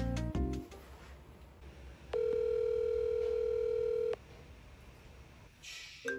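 Phone ringback tone heard by the caller: one steady beep about two seconds long while the call rings through. A short melodic phone ringtone starts right at the end.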